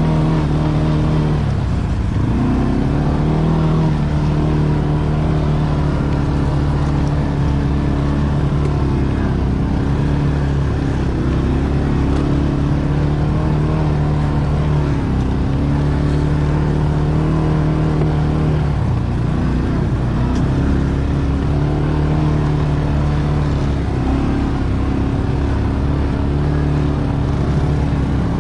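ATV engine running under load, its pitch dipping and climbing back about five times as the throttle is eased off and opened again, over a steady low rumble.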